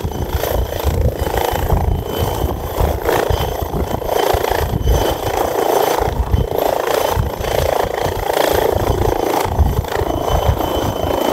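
Twin-engine turbine helicopter hovering low: a steady, loud rotor chop with an uneven low rumble beneath it and a faint high turbine whine.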